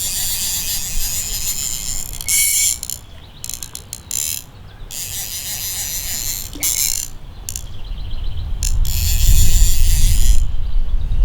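Fly reel's click-and-pawl drag buzzing in repeated bursts with short gaps as line runs off or onto the spool. A low rumble builds near the end.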